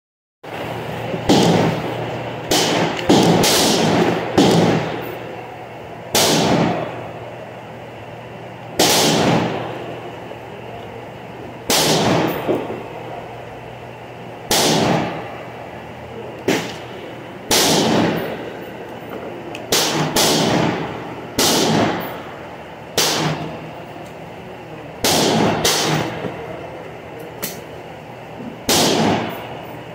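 Gunshots echoing under a covered range roof: about twenty shots at uneven gaps, some in quick runs of two or three, of varying loudness.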